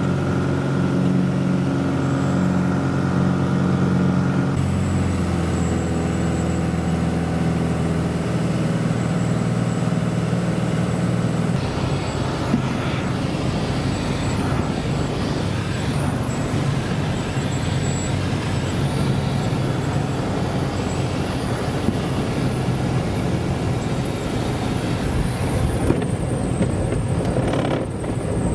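Rockwell Commander 114's single piston engine and propeller, heard inside the cabin, droning through approach and landing. The engine note drops in steps, a few seconds in and again about twelve seconds in. After that a rougher rumble and the rush of air take over.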